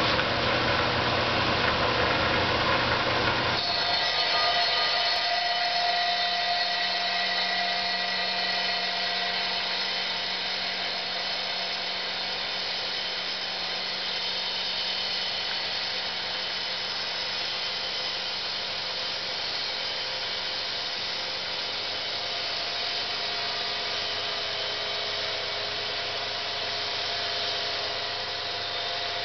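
Felker Tile Master water-cooled saw running steadily as a geode is fed into its blade to be cut into thin slices. A grinding cut over a steady motor hum. The sound changes abruptly about three and a half seconds in, then holds steady.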